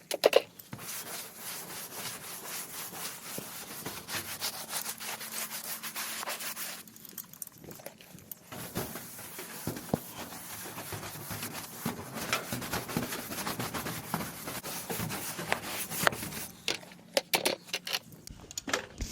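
A stiff brush scrubbing a rough exterior wooden garage door, in uneven back-and-forth strokes, with a short pause about seven seconds in.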